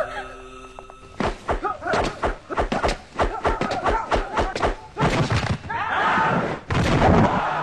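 Film fight sound effects: a rapid run of punch and body-hit thuds and slams, starting about a second in, with fighters' shouts among them.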